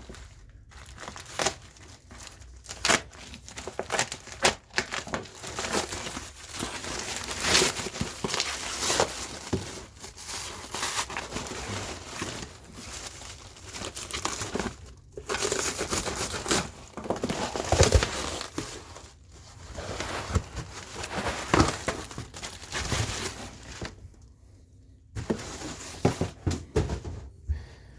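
Packing material being crinkled, crumpled and torn away by hand as a parcel is unwrapped, in irregular bursts of rustling with a few short pauses.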